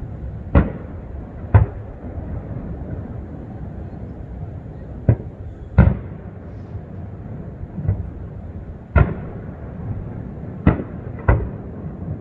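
Aerial fireworks shells bursting in the distance: about eight sharp bangs at uneven intervals, some in quick pairs, over steady low background noise.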